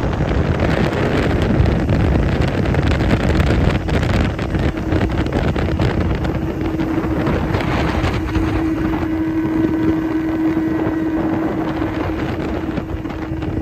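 Fishing boat's outboard motor running at cruising speed, mixed with wind buffeting the microphone; the steady engine hum grows stronger in the second half.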